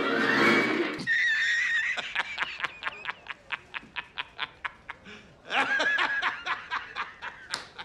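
A man laughing hard and at length. His laughter goes in rapid, even ha-ha-ha bursts that slowly fade, then breaks out loudly again near the end. The first second holds a loud stretch of film soundtrack before the laughter.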